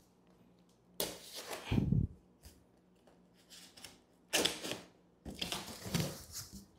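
A box cutter slicing through the packing tape along a cardboard box's top seam, in three short bursts, with cardboard scraping as the flaps start to lift near the end.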